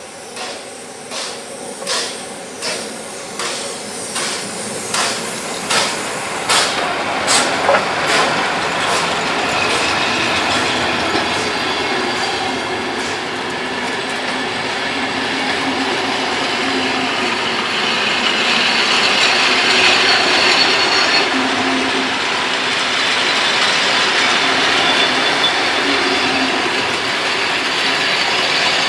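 Hr1 steam locomotive approaching and passing, its exhaust chuffing in even beats a little over one a second that grow louder. About eight seconds in, the beats give way to the steady rolling rumble and clatter of the coaches going by close, with a thin steady whine from the wheels.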